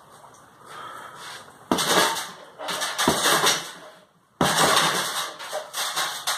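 Punches landing on a hanging heavy punching bag: a quiet start, then hard hits about a second and a half in, around three seconds in and again past four seconds, each followed by a rattling clatter from the bag and its metal stand.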